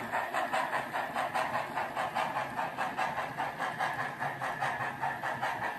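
Model steam locomotive hauling a coal train, with a steady, rhythmic chuffing exhaust beat that eases slightly in loudness as it draws away.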